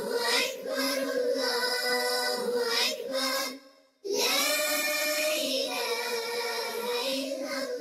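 Intro music with a sung melody. It fades out about three and a half seconds in and starts again suddenly at about four seconds.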